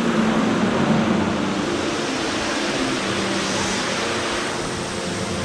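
Steady rushing noise of Ruby Falls, an underground waterfall, pouring in a large cave chamber.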